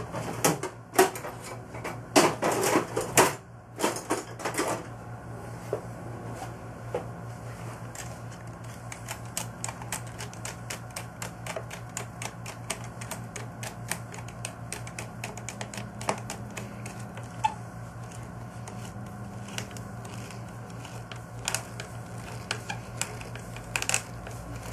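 Clicking and knocking as a corded drill is fitted and fastened into a wooden jig. There are loud handling knocks in the first few seconds, then a long run of small, quick, irregular clicks, over a steady low hum.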